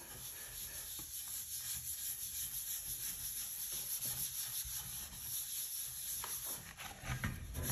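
A sponge scrubbing satin wood oil into a wooden board in circular strokes: a continuous, even rubbing with a slightly pulsing rhythm.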